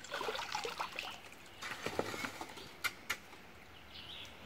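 Long-handled shovel digging and scraping gravel in a shallow, muddy creek bed, with water sloshing and a few sharp clicks of the blade on stones, two of them close together near the middle.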